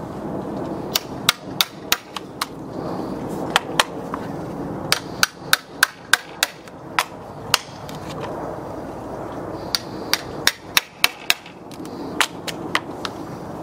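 Claw hammer striking a wood chisel, knocking out the saw-kerfed waste of a notch in a pressure-treated 6x6 post. The blows come in bursts of several quick, sharp strikes with short pauses between.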